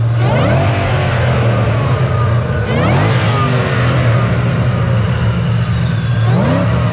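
A car engine idling with a steady low rumble, revved sharply three times: about as the sound begins, about three seconds in, and near the end.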